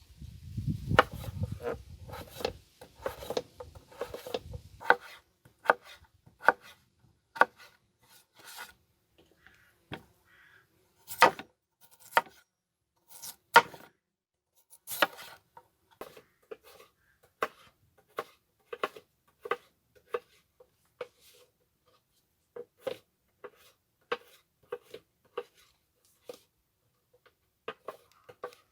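Knife chopping on a wooden cutting board: a long run of separate sharp knocks, roughly one a second and unevenly spaced, with a few heavier strokes near the middle.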